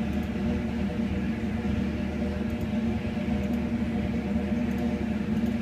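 Steady, even mechanical hum from the engine dyno cell: a few constant tones with a low drone beneath, holding one pitch with no revving or change.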